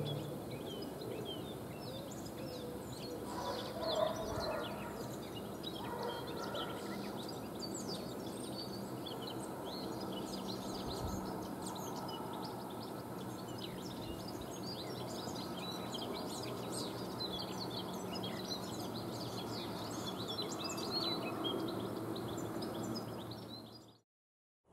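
Many small songbirds chirping and singing over a faint steady background noise, fading out near the end.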